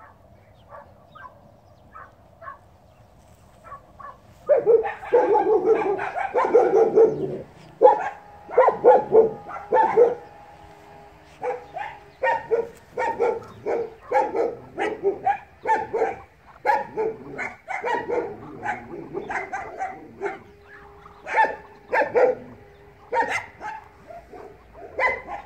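Muscovy ducks calling: a quick run of short, repeated calls, two or three a second. The calls start about four seconds in and keep going.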